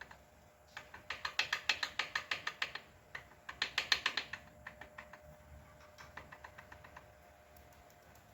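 Ratchet wrench clicking in quick, even runs of about seven or eight clicks a second, two loud runs and then a fainter one, as it works the bolts for pulling the pistons.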